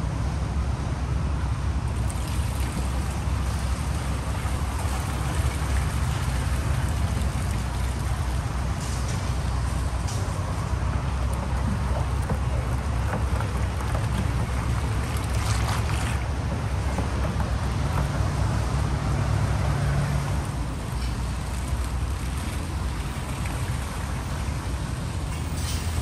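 Steady traffic noise from a busy road: a constant low rumble with a hiss of tyres. A low engine hum swells briefly about three quarters of the way through.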